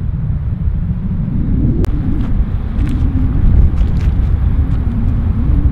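Strong wind buffeting the microphone: a loud, steady low rumble that rises and falls unevenly.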